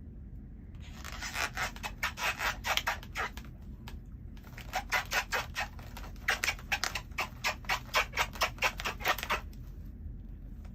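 Toothbrush scrubbing back and forth in rapid strokes, about four or five a second. There are two runs: a short one, then after a brief pause a longer one.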